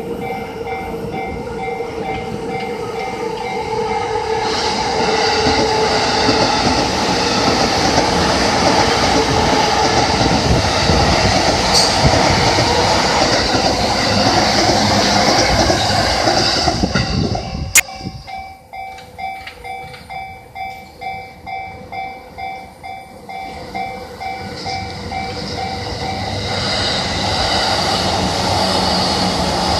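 Level-crossing warning bell ringing in a steady repeating rhythm while a Yamanote Line electric train runs loudly over the crossing. The train noise cuts off abruptly a little over halfway through, just after a sharp click, leaving the bell on its own. Near the end the noise of another train builds up.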